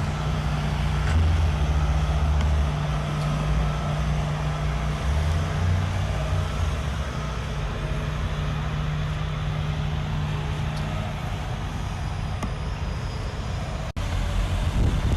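Heavy diesel construction machinery running steadily, a low engine hum, a little quieter after the first few seconds, with a brief dropout near the end.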